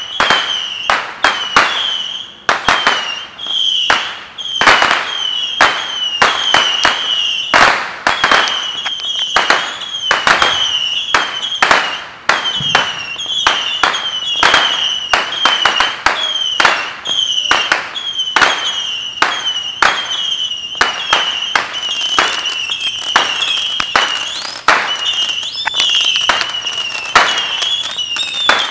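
Aerial fireworks bursting in rapid succession, about two sharp bangs a second, each with a short echo, over a continuous high-pitched wavering trill.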